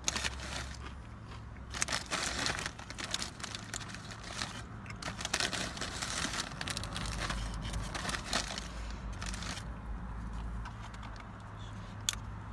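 Tortilla chips crunched and chewed in a steady run of crackling bites, thinning out near the end with one sharp click. A steady low hum lies underneath.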